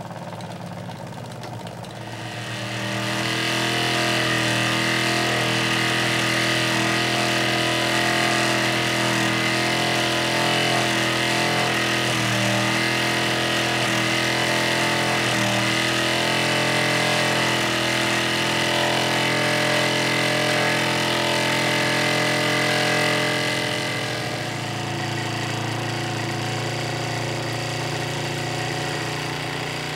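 Fyne Machinery and Engineering toy steam engine running steadily under steam, a fast even buzz with a hiss of steam over it. It gets louder about two seconds in, then drops back and loses most of its hiss about three-quarters of the way through.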